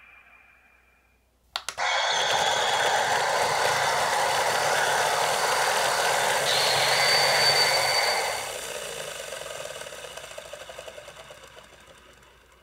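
CSM Henshin Belt Typhoon toy playing its henshin (transformation) sound effect through its speaker. A click is followed by a sudden loud rushing, whirring noise. It holds for about six seconds, with a high whine joining near its end, then dies away.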